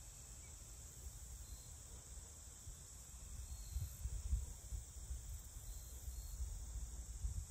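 Faint outdoor ambience: a steady high-pitched insect buzz, with an uneven low rumble of wind on the microphone that grows stronger about halfway through.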